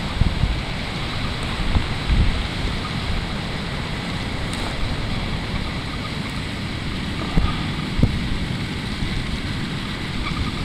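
Wind buffeting the camera microphone: a steady rushing noise with a gusting low rumble and a few short thumps.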